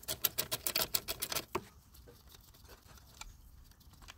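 Socket ratchet clicking rapidly for about a second and a half as small screws are backed out, then a few scattered faint clicks.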